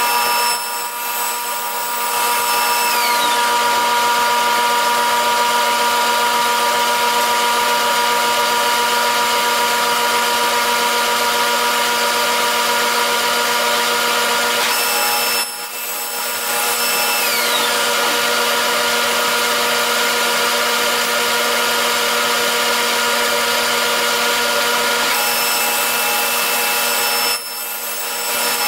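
Table saw motor and blade running steadily while thin wooden divider strips are crosscut to length, with three brief dips in the sound, about a second in, midway and near the end.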